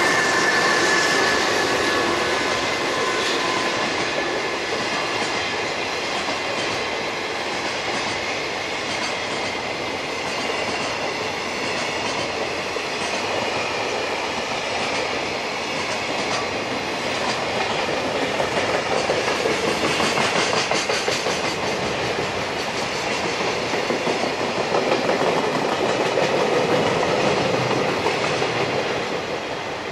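Long electric freight train of loaded container wagons rolling past, wheels clattering over the rail joints with a steady rumble. There is a thin high tone near the start, and the sound fades near the end as the last wagons go by.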